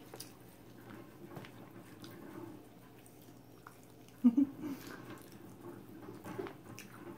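Close-miked chewing and mouth sounds of people eating rotisserie chicken, with small wet clicks; a brief louder sound about four seconds in.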